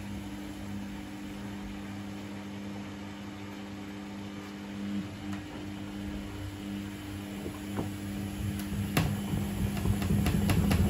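Samsung WF80F5E2W4W front-loading washing machine running in service mode, its drum motor giving a steady hum as the wet laundry turns. About nine seconds in, sharp clicks and a louder, rougher tumbling noise set in.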